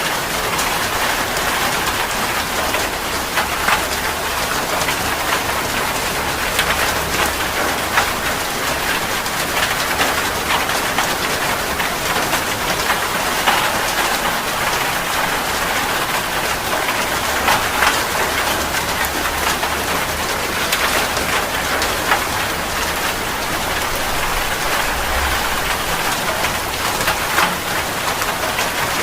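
Heavy rain falling steadily on a surface, a dense even patter with many individual drops clicking through it.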